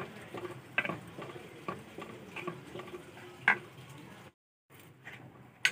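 Wooden spoon stirring thick rice kheer in an aluminium pot, with scattered irregular clicks and ticks from the spoon against the pot and the thick, bubbling mixture. The sound drops out completely for a moment a little after four seconds in.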